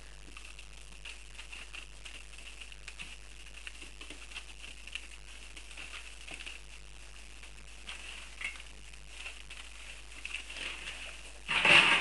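Dogue de Bordeaux puppies scuffling over newspaper and eating kibble from a metal pan: light pattering and paper rustling, with a brief, much louder burst near the end.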